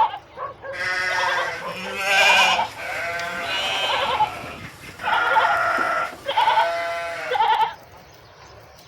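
Sheep bleating: a string of long, wavering bleats, some overlapping at different pitches, then a short lull near the end.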